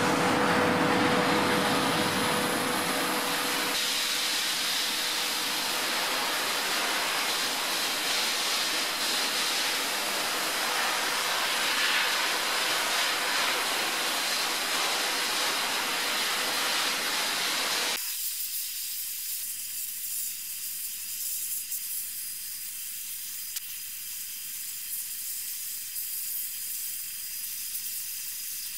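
Abrasive blast nozzle hissing steadily as medium-grit glass media is shot-blasted against a car body shell. About eighteen seconds in, the sound suddenly loses its lower part and carries on as a thinner, quieter hiss.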